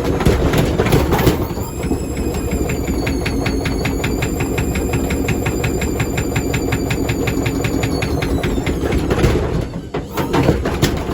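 Indesit Moon SIXL145 washing machine running hard, with a fast, regular knocking as the machine jumps about. A motor whine comes in about a second and a half in, rises a little, then holds until it stops near the end.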